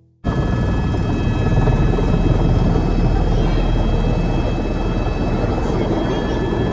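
Helicopter running: dense, steady rotor and engine noise with several high, steady turbine whine tones on top, starting abruptly a moment in.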